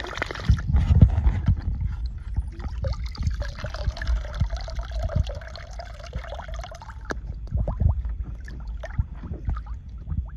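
Water splashing and sloshing as a young beaver swims and dives in a shallow pool, loudest in the first second or so, with small knocks and low bumps against the plastic throughout. A thin wavering whine runs for a few seconds in the middle.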